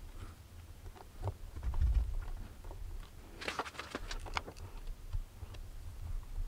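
Light clicks and taps of hands handling a pedal-assist sensor and small tool at a bicycle's bottom bracket, with a quick run of clicks about three and a half seconds in.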